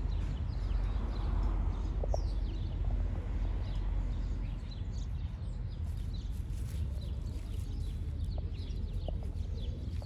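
Songbirds chirping in many short high calls over a steady low rumble of city traffic.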